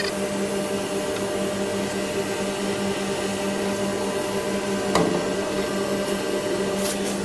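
Large-diameter tube mill production line running: a steady machine hum with a constant low tone, and one sharp click about five seconds in.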